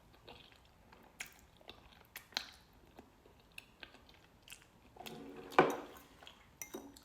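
A person chewing cheesy pasta close to the microphone: soft wet mouth clicks and smacks, with one louder mouth sound about five and a half seconds in.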